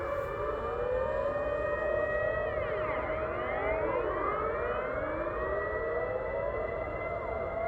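Civil defense sirens sounding in a test alert. One holds a steady tone while other sirens rise and fall across it.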